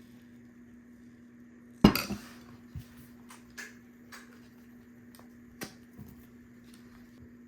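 Metal kitchen utensils clattering against a pan: one loud clank about two seconds in, then a few lighter clinks, over a steady low hum.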